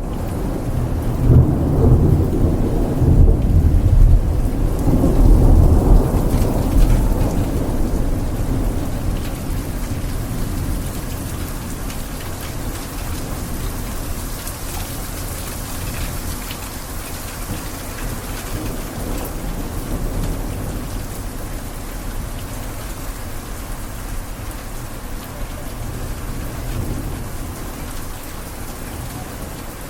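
Thunder rumbling loudly over the first several seconds and dying away, leaving heavy rain falling steadily.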